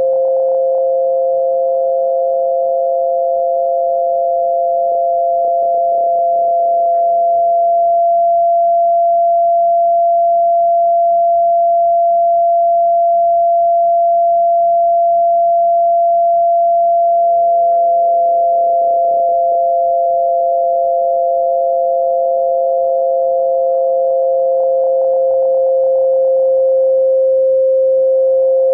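Two steady electronic sine tones, one a little higher than the other, held together without a break: a synthetic tinnitus-masking tone. Near the end the higher tone briefly fades and returns.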